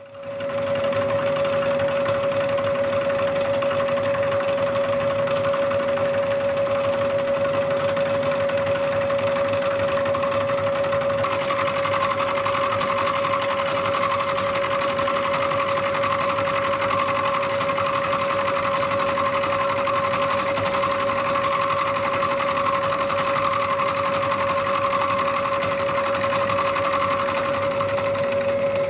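Bridgeport vertical milling machine cutting cast iron with an end mill: a steady machine whine with the hiss of the cut. The sound comes in suddenly at the start and turns brighter about a third of the way in.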